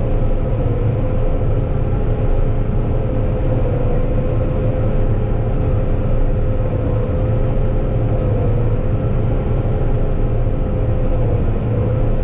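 Combine harvester running steadily under load, a continuous low engine rumble with a steady mechanical whine over it.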